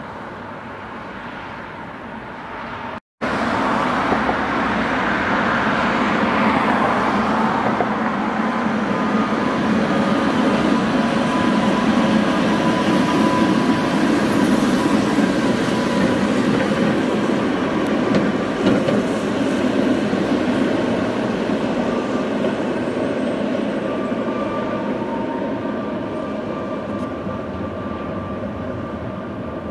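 Leipzig tram rail-grinding train, two converted Tatra work cars coupled back to back, rolling past close by on the street tram tracks. It is a loud, dense rumble that starts abruptly about three seconds in and slowly fades as the train moves away.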